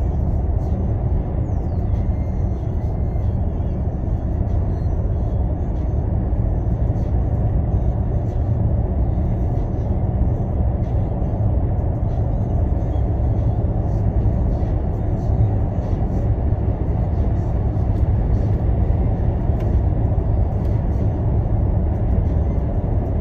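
Freight train rolling steadily past: a continuous low rumble of intermodal cars going by, heard from inside a car, with faint scattered clicks.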